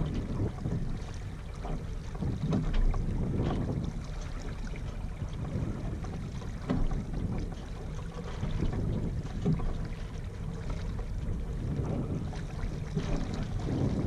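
Wind buffeting the microphone, with water washing along the hull of a small sailboat sailing slowly in light air. It is a steady rushing that swells and eases irregularly.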